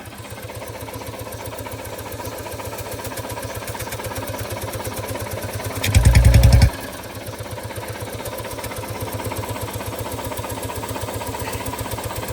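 Royal Enfield Bullet 350's single-cylinder engine idling through an aftermarket bend-pipe silencer, a steady, even thump, with one brief louder burst about six seconds in.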